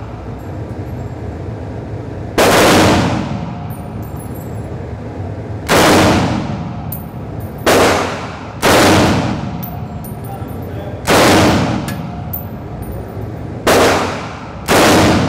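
Ruger XGI semi-automatic rifle in .308 Winchester firing seven shots at uneven intervals, about one to three seconds apart, each with a long echo off the walls of an indoor range.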